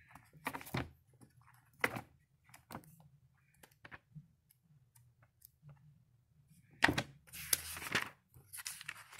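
Thin Bible pages being turned and flicked by hand: scattered short papery flicks, then a longer, louder rustle of pages about seven seconds in.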